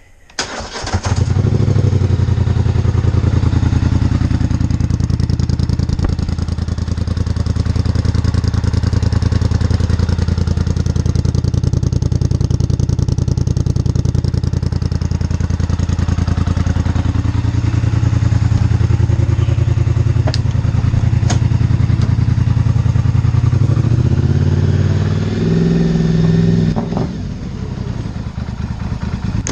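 Polaris Scrambler 850 ATV's parallel-twin engine, fitted with a full Big Gun exhaust, catches about a second in and runs at a steady idle, starting cold. Near the end the engine note shifts up and down briefly, then settles lower and quieter.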